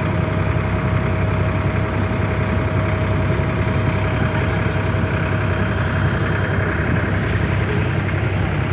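Diesel engine of a wooden abra water taxi running steadily under way: a constant low hum with a steady mid-pitched whine on top, unchanging in pitch.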